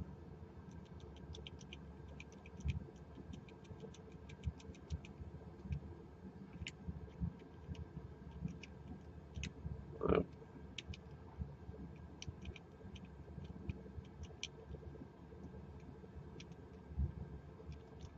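Number wheels of a Master Lock four-digit combination padlock clicking faintly as they are turned notch by notch, in quick runs of clicks and then single ones, with soft handling knocks; the wheels are being stepped through under shackle tension to find each wheel's gate and decode the combination. One brief louder rasp comes about ten seconds in.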